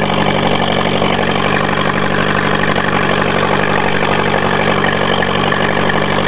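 1984 Honda Prelude's four-cylinder engine idling steadily and very loud on a cold morning start, running on what the owner calls a bad fuel pump.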